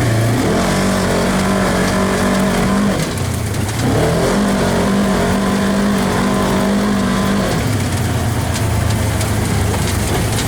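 Polaris RZR side-by-side's engine running steadily while driving, easing off briefly about three seconds in and then picking up again.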